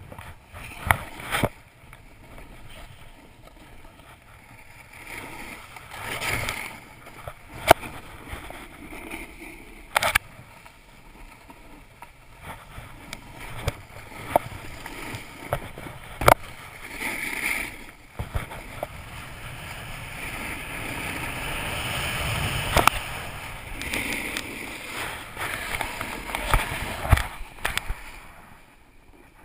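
Snowboard sliding and carving over packed snow: a rushing scrape that swells and fades with the turns, with a few sharp knocks.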